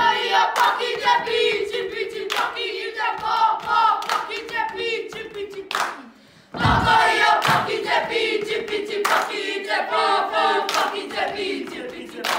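A group of children chanting together in te reo Māori, a haka-style action chant, with sharp hand claps and body slaps in time. The chant breaks off briefly about six seconds in and comes back in loudly.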